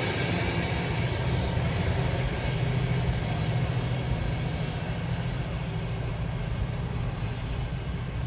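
Class 68 diesel locomotive's Caterpillar V16 engine working hard as the train pulls away, a steady low drone fading slowly, with the rumble of the coaches on the rails.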